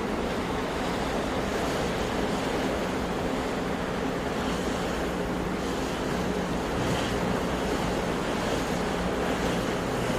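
Sea waves washing on the shore: a steady rush of surf with no break, swelling slightly now and then.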